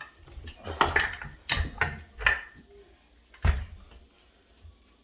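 A handful of sharp knocks and clanks from strut and spring compressor parts being handled, several close together in the first half and a single louder knock a little past the middle.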